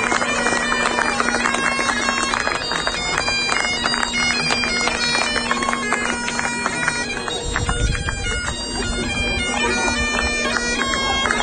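Bagpipe music: a steady drone under a melody that steps up and down. A low rumble joins it about two-thirds of the way through.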